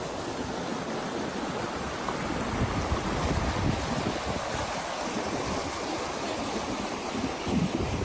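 Shallow river water rushing steadily over rocky rapids.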